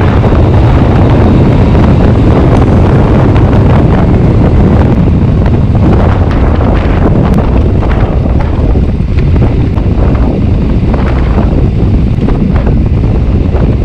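Loud, steady wind buffeting the microphone, the rush of air from riding a motorcycle, with a deep rumble underneath.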